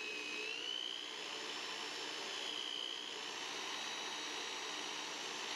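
Power drill running steadily, spinning a 1911 grip screw in its chuck against a triangular file that cuts back the underside of the screw head. A steady whine that rises slightly in pitch about half a second in and dips a little around three seconds.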